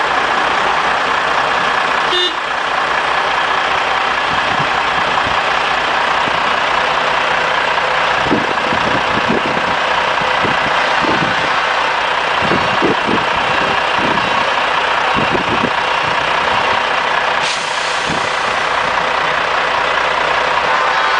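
Diesel engines of a convoy of heavy tractor units, a Volvo FH among them, running at low speed: a steady, dense engine and road noise, with a short tonal blip about two seconds in.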